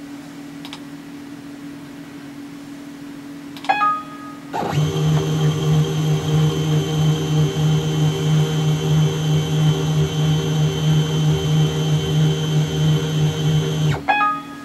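A CNC mini mill's motors start about four and a half seconds in, run steadily with a whine for about nine seconds, then stop suddenly, with a short blip at the start and at the stop. A low steady hum sits under the quieter parts.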